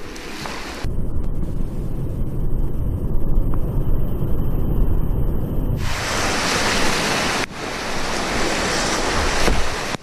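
Rushing whitewater of a river in flood, heard close up from the kayak: first a heavy, dull rumble with wind buffeting on the microphone, then about six seconds in a loud, hissing rush of breaking waves and splashing water.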